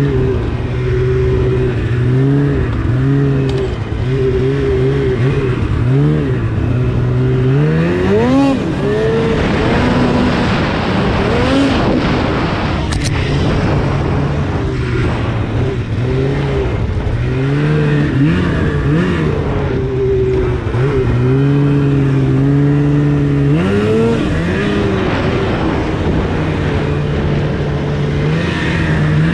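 2016 Polaris RMK 800 snowmobile's two-stroke twin engine running through a Bikeman aftermarket exhaust can, heard from the rider's seat. The pitch holds steady at part throttle and rises and falls with the throttle, climbing sharply about eight seconds in and again about five seconds before the end.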